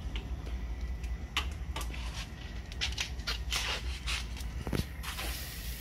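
Clinks and rattles of a metal wire grilling rack being handled on the grill, with several sharp knocks clustered through the middle, over a low steady rumble.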